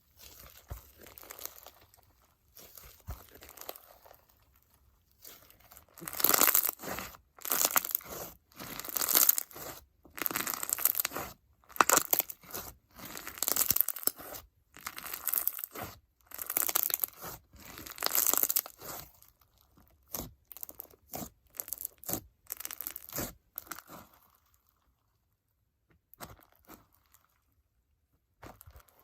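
Icee-jelly crunch slime packed with foam beads and bingsu beads being squeezed and folded by hand, crackling and popping in repeated bursts about once a second. The bursts are loudest in the middle and die away to a few faint clicks near the end.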